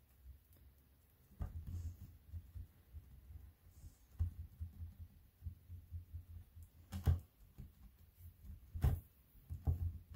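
Hands pressing and tapping a block of stacked polymer clay against a cutting mat: a string of soft, irregular low thuds, with sharper knocks about seven and nine seconds in.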